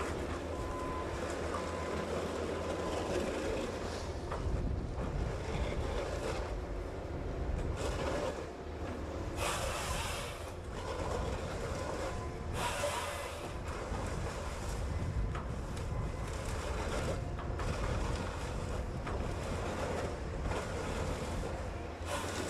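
Komatsu PC200F harvester's diesel engine and hydraulics running steadily as its Komatsu 378E head feeds and delimbs eucalyptus stems. Two louder bursts that reach much higher in pitch come about ten and thirteen seconds in.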